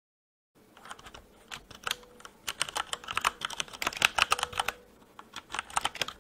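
Computer keyboard typing: a quick, irregular run of key clicks that starts about half a second in, with a short lull near five seconds.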